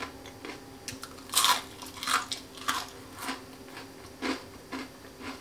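Chewing and crunching a crispy fried onion pakora (lachha pakora): a series of sharp, crisp crunches, one every half second to second, as the fritter is bitten and chewed.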